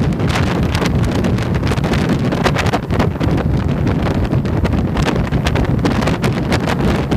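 Wind buffeting the microphone of a camera on a moving Yamaha motorcycle at about 50–60 km/h, gusting unevenly over the low rumble of the engine.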